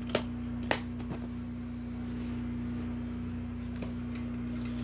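A few light clicks of a plastic DVD case being handled, the sharpest a little under a second in, over a steady low hum.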